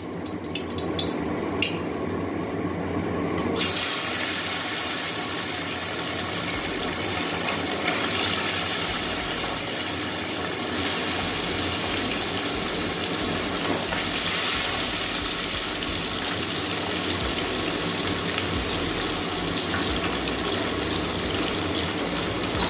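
Pieces of bata fish going into hot mustard oil and frying, a steady sizzling hiss. A few pops from the hot oil come first, the full sizzle starts about three and a half seconds in, and it grows louder about eleven seconds in as more pieces go in.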